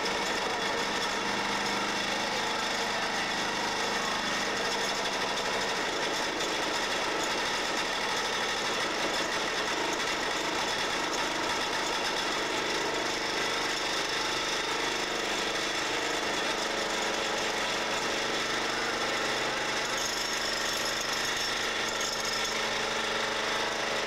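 Vibratory pile-driving hammer clamped onto a steel pile, running steadily with a rapid, even rattle as it drives the pile.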